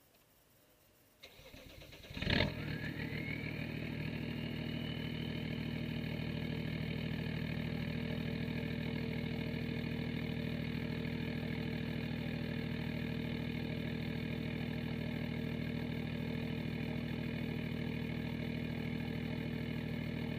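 BMW 525 TDS 2.5-litre straight-six turbodiesel started and heard at the tailpipe of its straight-through 70 mm exhaust, which has no catalytic converters. The starter cranks briefly and the engine catches with a loud burst about two seconds in. A whine then rises and levels off, and the engine settles into a steady idle.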